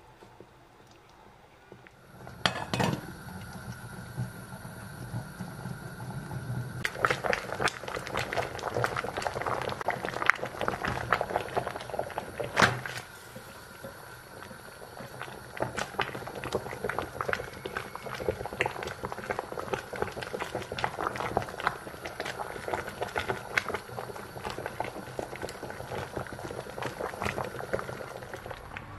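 Cabbage cooking liquid boiling in a stainless steel pot, a dense bubbling crackle that starts a couple of seconds in and thickens a few seconds later, as the softened cabbage leaves are peeled off and lifted out dripping. A couple of sharp knocks against the pot stand out.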